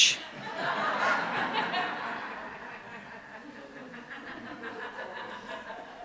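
Audience laughing and chuckling, swelling about a second in and then fading away gradually.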